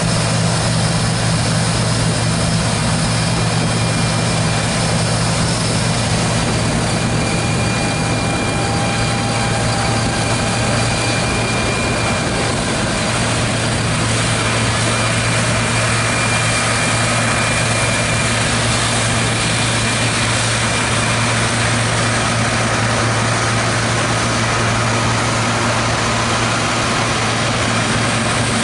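John Deere T670i combine harvester running steadily under load while cutting wheat: an even machine drone with a strong low hum under a rushing noise, and faint whining tones that come and go.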